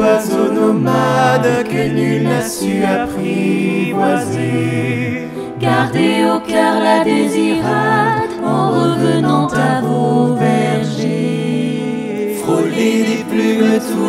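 Small mixed choir of women and men singing in harmony, holding long chords.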